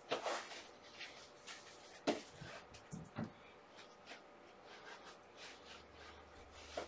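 Faint scattered clicks, scratches and rustles of small movements, with soft thumps about two and three seconds in.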